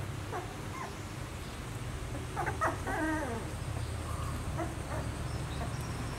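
Puppies whimpering in short, high whines: a few near the start and a cluster of them about two and a half to three seconds in, over a low steady hum.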